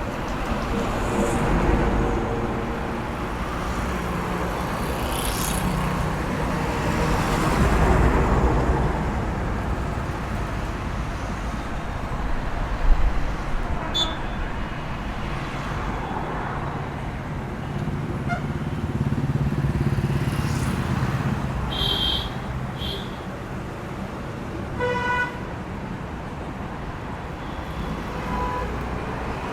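Road traffic passing: several vehicles drive by one after another, each swelling and fading, with a couple of short horn toots in the later part.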